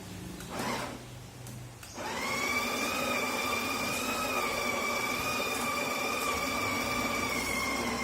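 Espresso machine motor starting about two seconds in and running steadily with a high, even whine.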